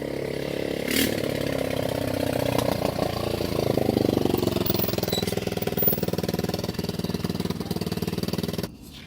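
An engine running, growing louder over the first few seconds, then holding steady, and cutting off abruptly near the end.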